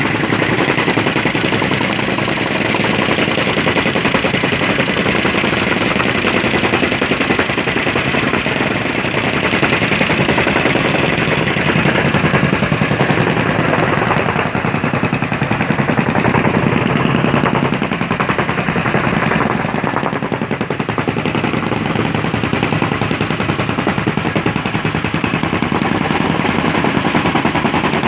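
Two jumping-jack tamping rammers running together, their engines driving the feet into gravel in a fast, steady rattle of blows.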